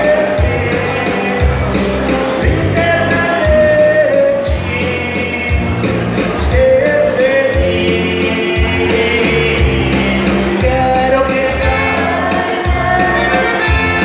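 Live band playing a song: a male singer over electric bass and drums with a steady beat.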